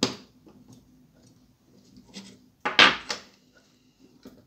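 Hard plastic parts and metal-cased 18650 battery cells being handled on a table. There is a sharp click at the start, then a short clatter of knocks about three seconds in.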